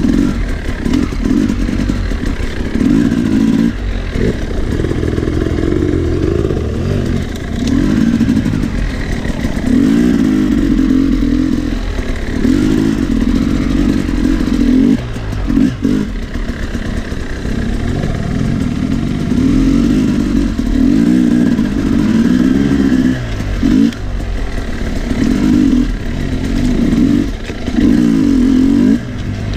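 Sherco 300 SE Factory two-stroke enduro motorcycle engine revving up and dropping back again and again as the bike is ridden, the throttle opened and closed in short bursts.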